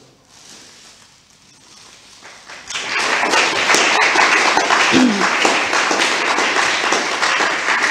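Audience applauding: after a quiet start, clapping sets in about three seconds in and carries on steadily.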